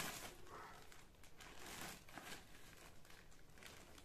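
Plastic packaging bag crinkling faintly in irregular rustles as it is handled.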